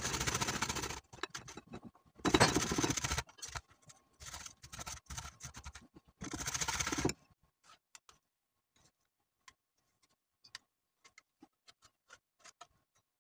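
Garlic clove being grated on a stainless steel box grater: three runs of quick rasping strokes in the first seven seconds, the second the loudest, then only faint scattered scrapes and clicks.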